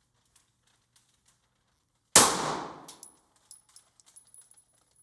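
A single gunshot about two seconds in, dying away over most of a second, followed by a few light metallic clinks.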